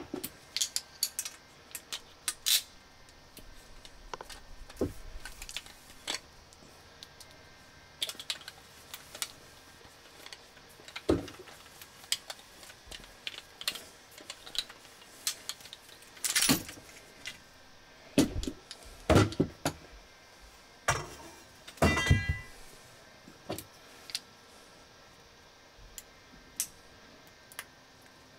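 Irregular clicks and knocks of brass fittings, copper pipe and a tubing cutter being handled and set down on a table, with one brief metallic scrape that rings for a moment late on.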